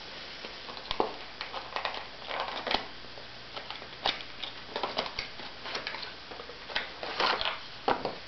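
Hands unpacking a speed cube from its packaging: irregular crinkling, rustling and clicking of plastic and cardboard, with short sharp clicks scattered throughout.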